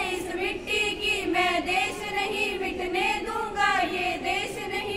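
A small group of young women singing a Hindi patriotic song together, in continuous sung phrases.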